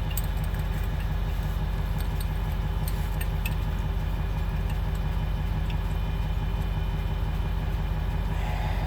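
Freightliner truck's diesel engine idling steadily, with a few light metallic clicks of tools and bolts in the first few seconds.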